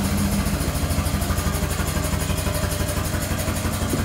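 Air-powered hydraulic pump of an ATEX power-drive drum tipper running while the unit drives forward, a loud, steady, rapid pulsing over a low hum.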